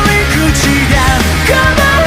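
Loud rock music with a sung or lead melody over steady bass and drums.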